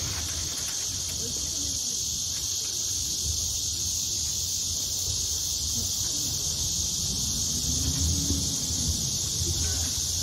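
Steady, high-pitched chorus of insects buzzing without a break, over a low rumble.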